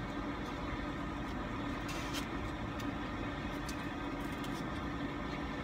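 Steady drone of an idling engine, heard from inside a parked car, with a few light clicks about two seconds in from a plastic fork on a takeout container.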